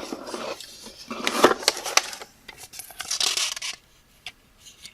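Paper and packaging rustling and crinkling as items are handled and taken out of a box, in two spells, the second shorter, with a few sharp clicks.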